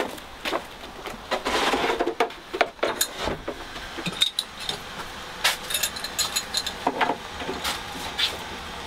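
Knocks, a scrape and light metallic clinks: a plastic cool-box mash tun being set down on top of the boiler, then copper pipe being fitted to it.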